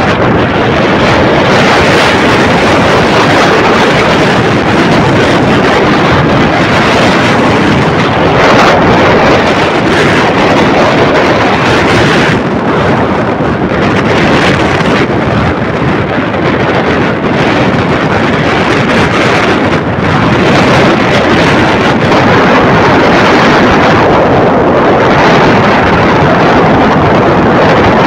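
Loud, steady wind rush buffeting the microphone of a motorcycle riding at speed, with the bike's running and road noise mixed in.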